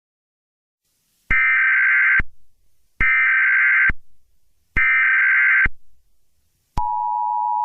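Emergency Alert System signal: three short bursts of SAME header data tones, each just under a second and about 1.7 s apart, then near the end the start of the steady two-tone EAS attention signal.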